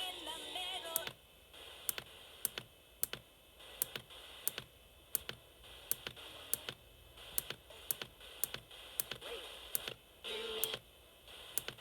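Radio receiver hiss with faint snatches of broadcast sound and a short louder burst near the end, under a sharp, regular tick about twice a second.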